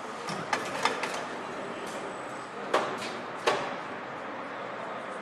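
A few sharp knocks and clicks of parts and tools being handled on an engine assembly line, the two loudest about halfway through, over steady factory background noise.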